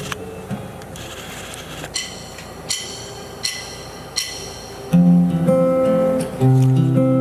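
Acoustic guitar intro: after a quieter start broken by a few short bright high accents, the guitar comes in loud about five seconds in, playing a plucked and strummed opening.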